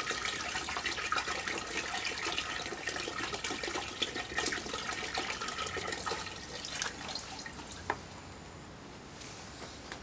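Water poured from two plastic bottles, two streams splashing into the water standing on top of sand, stopping about seven seconds in.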